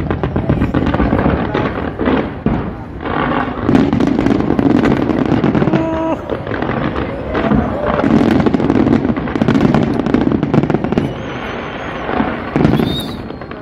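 Fireworks going off: dense, rapid crackling of firecrackers with repeated low booms swelling and easing.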